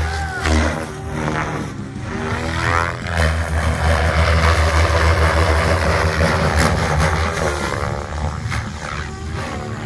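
Goblin Raw 580 electric RC helicopter flying aerobatics: the rotor blades and motor whine, rising and falling in pitch as it swoops past. The sound is loudest through the middle and eases near the end.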